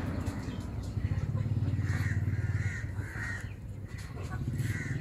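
A handful of short, harsh animal calls, repeated at uneven gaps of under a second, beginning about two seconds in, over a low steady rumble.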